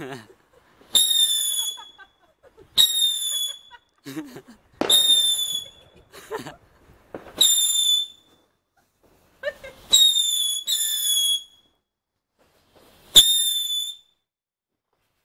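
Lesli 'Kippenvel' (Goose Bumps) firework fountain going off in a series of high whistles, about seven in all. Each starts suddenly, lasts about a second and falls slightly in pitch, with short gaps between, two of them close together about ten seconds in.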